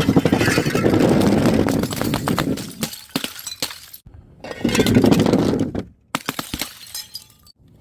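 Glass bottles breaking: three short bursts of crunching, crackling shatter with clinking shards. Each burst cuts off abruptly into the next.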